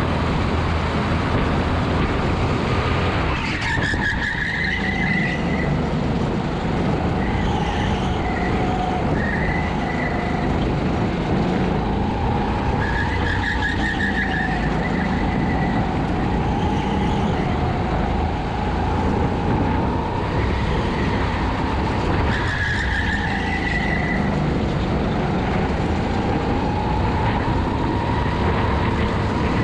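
Honda GX200 single-cylinder four-stroke kart engine running hard, its pitch rising and falling as the kart brakes and accelerates through corners. Tyres squeal briefly several times in the turns.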